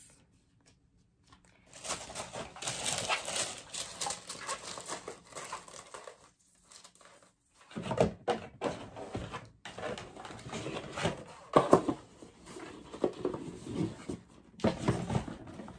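A cardboard gift box and its paper insert being handled: irregular rustling with light knocks and clicks, starting after a second or so of quiet and pausing briefly midway.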